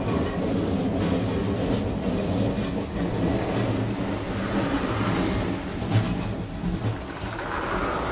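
Moving passenger train heard from the gangway between two carriages: a steady loud rumble and rattle of wheels and couplings, with a sharp knock about six seconds in.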